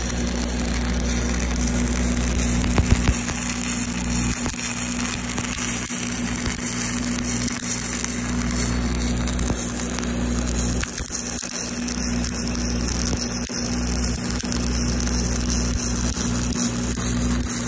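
Stick-welding arc crackling and sizzling steadily as a rod is run along the cap pass of a steel pipe weld, with a steady low hum underneath.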